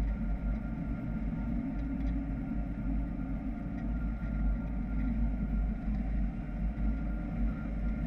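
Steady rush of wind buffeting the microphone of a camera mounted on a hang glider in flight, with a faint steady whistle over it.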